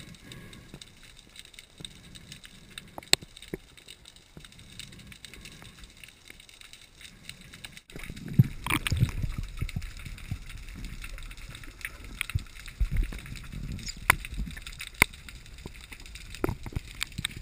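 Underwater sound picked up by a diver's camera: a low water hiss with scattered sharp clicks. About eight seconds in it changes abruptly to louder low rumbling water movement with thumps and more clicks.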